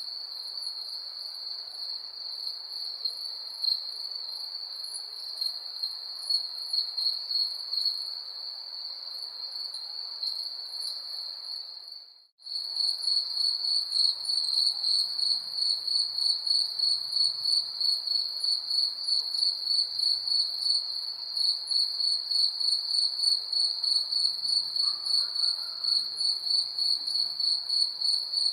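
Crickets chirping in a steady high-pitched trill. About twelve seconds in the sound briefly drops out, then resumes with the chirps pulsing in a more distinct rapid rhythm.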